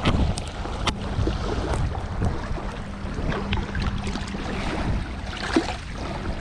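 Small waves lapping and splashing against a rocky bank, with wind buffeting the microphone and a few sharper splashes.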